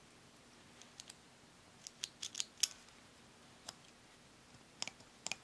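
Light, sharp plastic clicks from a Beyblade Burst top's parts being twisted and pulled apart by hand: about a dozen irregular clicks, several in quick pairs.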